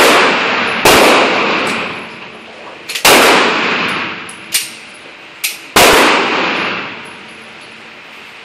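Four 9 mm shots from a Beretta 92FS pistol, fired at uneven gaps of about one to three seconds, each followed by a long echo through an indoor range. Fainter sharp reports fall between the shots.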